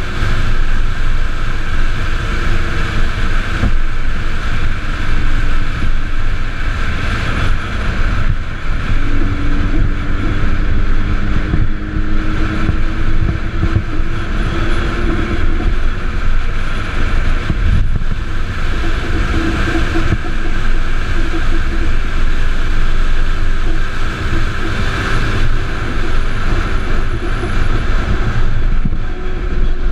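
Solar race car driving at speed, heard from a camera on its solar-panel deck: wind buffeting the microphone over a steady road rumble, with faint whining tones drifting up and down in pitch.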